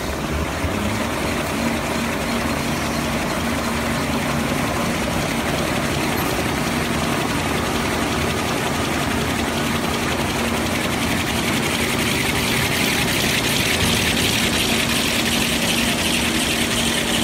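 Glue-lamination toilet tissue and kitchen towel rewinder running: steady machine noise from its rollers, drives and moving paper web, with a steady hum. A hiss grows somewhat louder in the second half.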